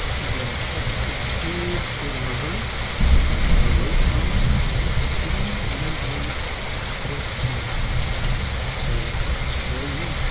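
Steady rain falling, with a low rumble of thunder starting suddenly about three seconds in and slowly fading.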